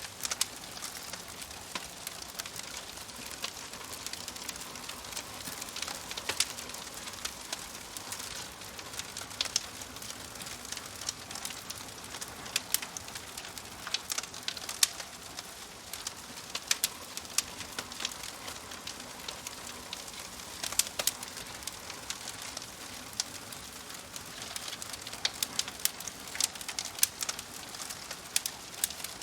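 Wood fire crackling: a steady hiss with frequent sharp pops and snaps at irregular intervals, a few of them much louder than the rest.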